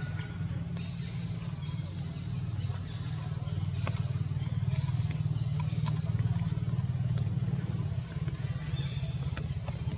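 A low, steady motor drone that grows a little louder about three seconds in, with a few faint clicks over it.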